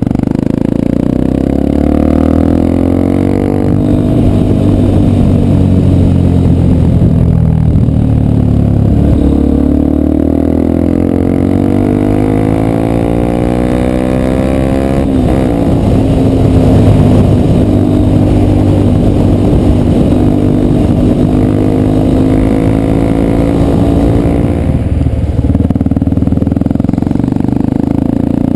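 Yamaha Ténéré 250's single-cylinder four-stroke engine running through an aftermarket Roncar Coyote 2 Way muffler. The exhaust note is loud and steady, and its pitch climbs and falls several times, with clear drops about a third of the way through and again near the middle, as the engine is revved or taken through the gears.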